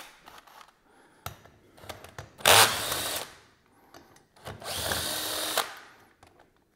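DeWalt cordless drill spinning a deep-well socket on the rocker box bolts of a motorcycle cylinder head. It runs in two bursts of about a second each, and the first is louder with a sharp start. A few light clicks of the socket being fitted come before them.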